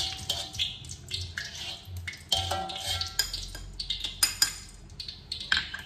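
Metal wire skimmer clinking and scraping against a steel wok as fried shallots are scooped out of hot oil, over a steady sizzle. The knocks come irregularly, the loudest a little after four seconds in.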